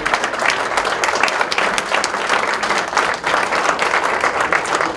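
An audience applauding, many hands clapping in a dense, continuous round of applause.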